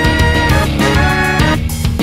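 Instrumental hip-hop backing track between rap lines: a drum beat under two held notes, each about half a second long.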